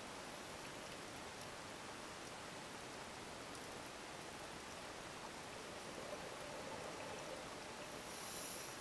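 Steady underwater hiss from a diver's recording, with a scuba regulator breath: a bright hissing inhalation near the end.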